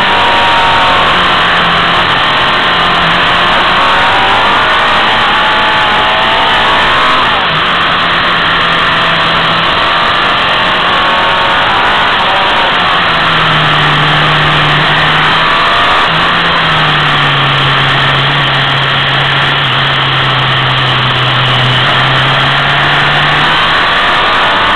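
Motorcycle engine pulling through a run of bends, its note shifting in pitch with the throttle and holding steady for several seconds at a time, under a loud, steady rush of wind on the microphone.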